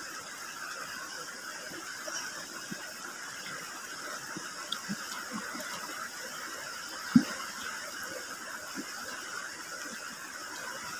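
Steady rushing of a shallow river, with faint wet chewing and finger-eating sounds and one short sharp tap about seven seconds in.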